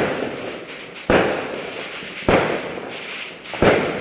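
Aerial fireworks bursting: three loud bangs about a second and a quarter apart, each fading away over about a second.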